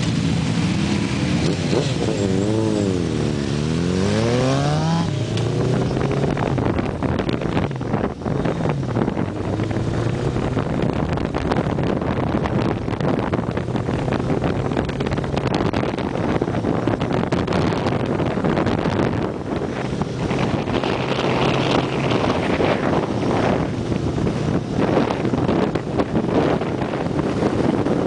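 Motorcycle engine revving up and down several times in slow traffic for the first five seconds or so, then running steadily at road speed under heavy wind noise on the microphone.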